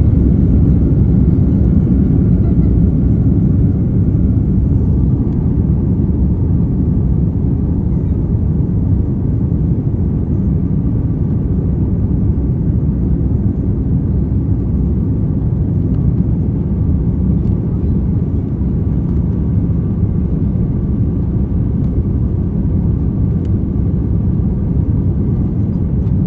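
Jet airliner engines during takeoff, a loud steady low rumble that eases slightly after the first few seconds.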